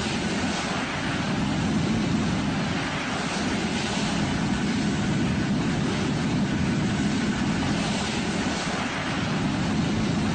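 Steady roar of a jet aircraft in flight, an even rushing noise with a low drone underneath.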